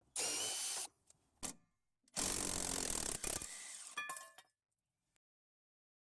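Two short bursts of mechanical working noise with a click between them, then a few light metallic clinks that ring briefly, from tools and brake parts being handled.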